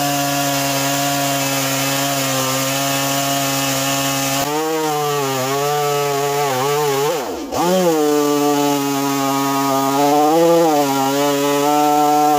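Two-stroke gas chainsaw held at steady high revs for about four seconds, then cutting into a yellow cedar log. The engine pitch sags under load and recovers several times, dropping sharply once about seven seconds in.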